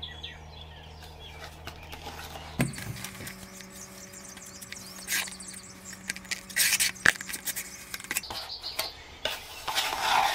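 A metal putty knife scraping and tapping against a can of Bondo body filler and its lid, scooping filler out to mix on cardboard: short scrapes and a few sharp clicks. A low steady hum runs underneath.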